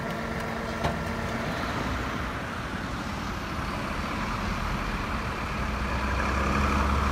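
Truck engine running steadily, its low rumble growing louder near the end.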